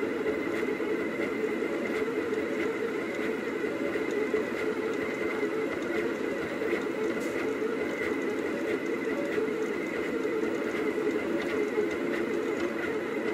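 Rostock delta 3D printer running: its stepper motors whir continuously as the arms move the hot end, with a steady high whine over the top.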